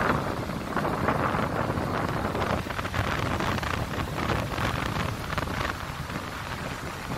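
Sea surf washing up a sandy beach, a steady rushing wash of waves, with wind buffeting the phone's microphone and adding a low rumble.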